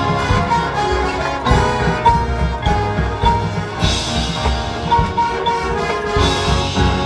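High school marching band playing a field show: sustained brass over a driving low drum pulse, with bright crashes about four seconds in and again near the end.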